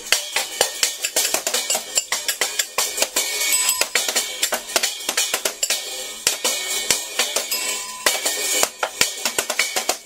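Washboard played as a percussion instrument: a quick, busy rhythm of scrapes and taps on its metal ridges, with cymbal-like hits.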